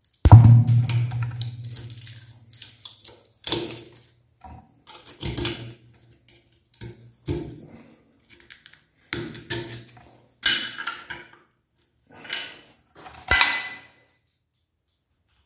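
A metal knife scraping and clinking against the metal head of a meat grinder as ground lollipop is cleared out, in a dozen or so separate scrapes and clinks. The first and loudest knock leaves a low hum that dies away over about two seconds.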